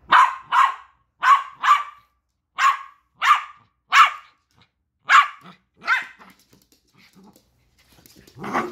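West Highland white terrier barking: about nine sharp, high barks over six seconds, often in quick pairs.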